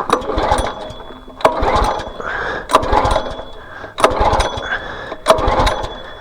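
Small gasoline engine on a pressure washer being pull-started with the choke on: about five recoil-cord pulls a little over a second apart, each a sharp yank followed by the engine briefly cranking over. It never catches or runs.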